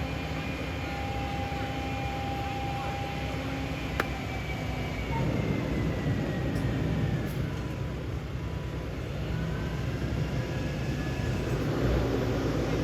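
Heavy road-paving machinery running steadily: a deep engine rumble with a thin whine that drifts slightly in pitch. There is one sharp click about four seconds in, and the rumble grows louder from about five seconds.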